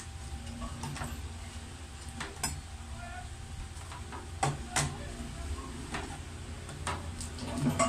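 Cleaver knocking on a plastic cutting board while chopping garlic cloves: about seven separate, irregularly spaced knocks.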